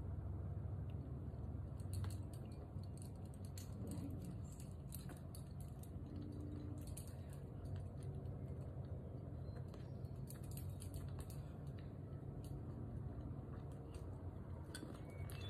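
Scattered faint clicks and light clinks from climbing gear and rope handling at the belay, over a steady low rumble.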